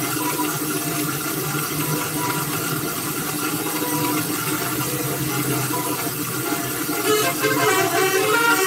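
Bus horns sounding over a steady noisy background. About seven seconds in, a telolet basuri musical bus horn starts playing a quick tune of changing notes.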